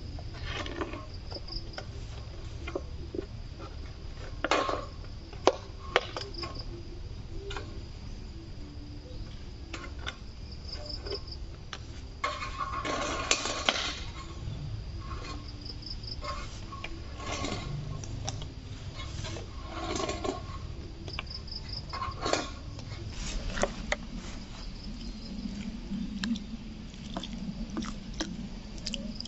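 Insects buzz steadily at a high pitch, the sound swelling every four or five seconds. Over it come irregular sharp clicks and crackles of plastic bottles being handled, with a longer stretch of rustling and crackling about halfway through.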